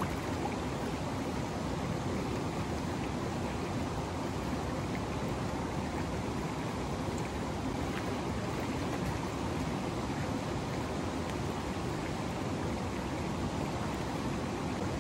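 Steady rush of flowing mountain river water at a rock pool.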